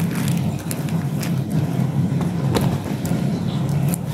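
A steady low hum with scattered light clicks and crinkles of plastic being handled as rice is wrapped.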